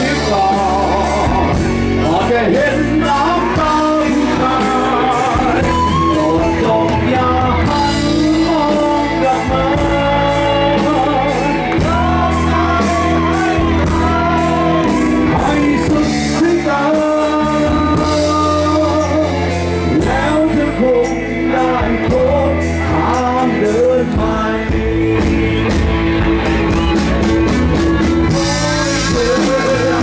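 Live rock band playing loud through a PA: a man's lead vocals over electric guitars and a steady beat.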